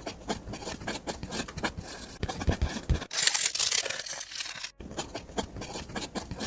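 Close-up handiwork on a miniature model build: light scraping, taps and small clicks of tools and materials, with a longer scraping hiss about three seconds in.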